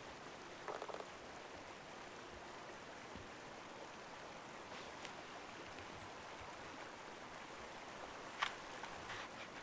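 Steady faint rushing of flowing water from a stream, with a few small clicks about a second in and one sharp crunch near the end.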